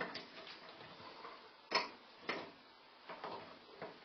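A few irregular, faint metallic clicks and taps from the nuts that hold a bathroom exhaust fan in its sheet-metal ceiling housing being snugged up tight.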